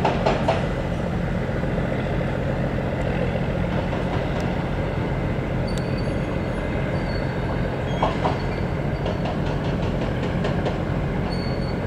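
Fishing boat's diesel engine running steadily: an even low drone with a noisy wash above it and a few faint high ticks.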